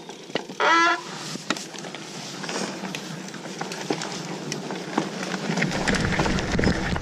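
Mountain bike ridden down a dirt forest trail: steady tyre noise with small clicks and rattles from the bike, and a low rumble that builds near the end. About a second in there is a short, loud, honk-like squeal.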